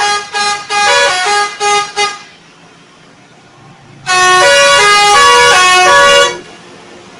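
Bus 'telolet' musical air horn playing a tune of changing notes, twice: a choppy run of short notes at the start, then a longer unbroken tune about four seconds in.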